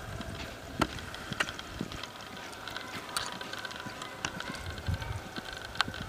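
Quarter horse gelding loping on soft arena dirt: low, muffled hoofbeats, clearest about five seconds in, with a few sharp clicks scattered through.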